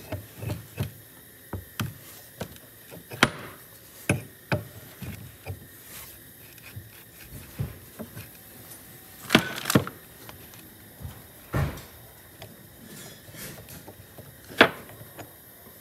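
Open-end wrench clicking and knocking on the brake light switch of an old Willys CJ2A brake master cylinder as the switch is unscrewed, the cylinder shifting on a wooden bench. Irregular metal clicks and knocks, with a few louder ones spread through.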